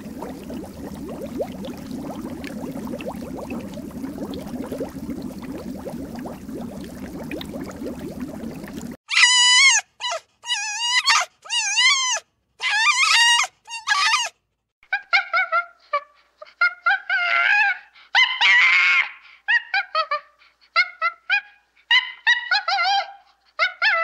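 A steady rough noise, then, about nine seconds in, a run of high-pitched wavering animal cries: about five long calls followed by many shorter ones.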